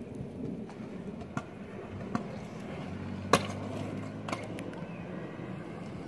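Stunt scooter wheels rolling over a concrete driveway, with several sharp clacks of the scooter, the loudest about three seconds in. A low steady hum joins about halfway through.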